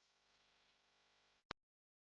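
Near silence: faint background hiss, ending about one and a half seconds in with a single brief click, then dead silence.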